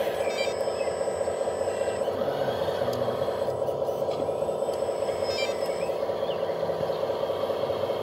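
Hydraulic pump of a 1/14 scale RC tracked skid-steer loader running continuously with a steady hum of constant pitch while the loader raises and tips its bucket.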